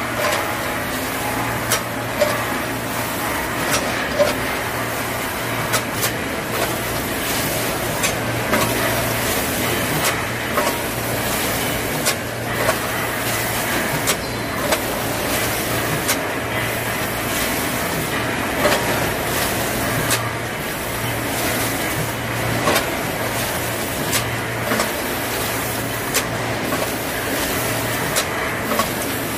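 Rotary pouch-packing machine running: a steady mechanical hum with sharp clacks every second or so from its grippers and stations.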